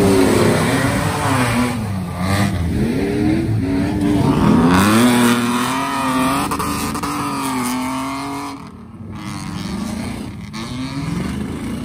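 Off-road racing vehicle's engine revving hard, its pitch climbing and dropping again and again with throttle and gear changes, then quieter over the last few seconds.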